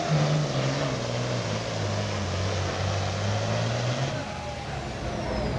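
Heavy super stock diesel pulling tractor's engine running hard under load. Its pitch falls in steps over the first four seconds as the tractor slows at the end of the pull, and the engine note fades about four seconds in.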